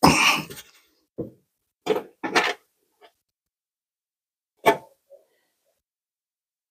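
A handful of short knocks and clatters of tools and parts being handled, about six spread over the first five seconds. The first is the loudest and longest, and the rest are brief single knocks with silence between them.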